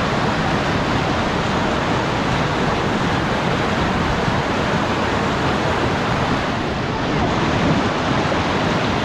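Whitewater pouring over a river ledge and churning in the hole below: a loud, steady rush.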